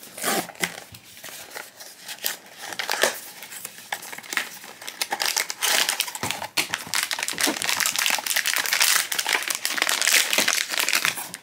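A cardboard blind box being opened, then its foil inner bag crinkling in the hands. The crackly rustling grows louder and denser over the second half.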